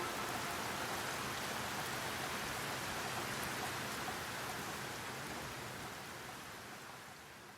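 Steady hiss of rain, slowly fading out toward the end.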